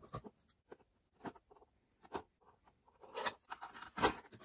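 Cardboard-and-plastic toy packaging being opened by hand: scattered light taps and scrapes, then a denser rustle of cardboard and plastic being pulled apart from about three seconds in.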